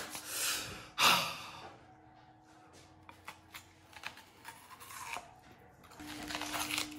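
A man breathes out hard in a loud sigh about a second in, then small crunches of teeth biting into a peeled raw onion. A faint steady hum comes in near the end.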